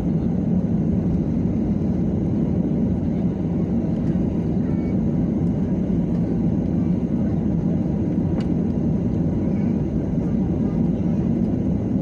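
Steady low rumble of a Boeing 737 jet airliner's engines and airflow heard inside the passenger cabin.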